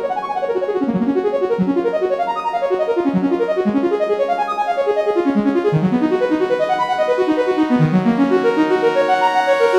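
Background music on a piano-like keyboard, played as quick runs of short notes, with a climbing run near the end.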